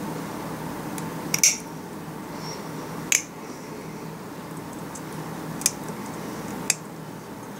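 Stainless cuticle nippers snipping a spotted puffer's overgrown beak teeth, heard as sharp clicks: a quick pair, then three single snips over the next few seconds. A steady low hum runs underneath.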